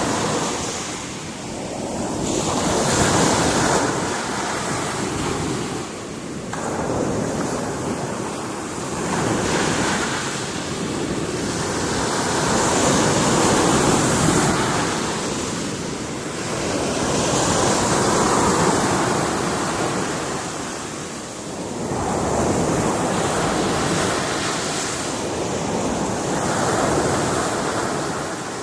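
Sea surf breaking on a rocky shore: a continuous rush of water that swells as each wave comes in and falls back, every four to six seconds.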